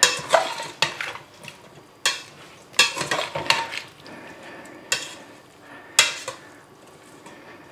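A utensil stirring in a pot of green beans with bacon and water, with several sharp knocks and scrapes against the pot, over a faint sizzle.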